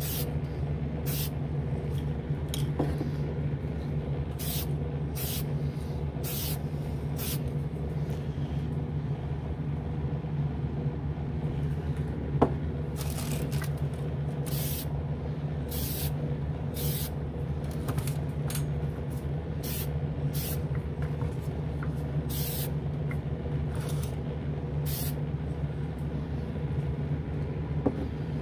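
Aerosol spray can of model lacquer hissing in many short bursts, about a second apart, laying on a light mist coat. Under the spray runs the steady low hum of a spray booth's fan, and there is a single sharp click about twelve seconds in.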